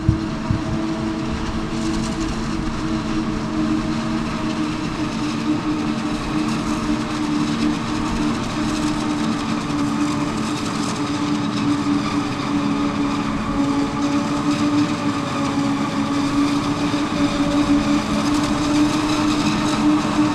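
Claas Jaguar forage harvesters chopping maize: a steady heavy engine drone with a held whine of several tones on top.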